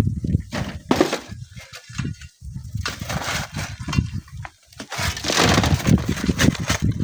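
Strong wind buffeting the microphone in uneven gusts, with a louder rushing burst about five seconds in.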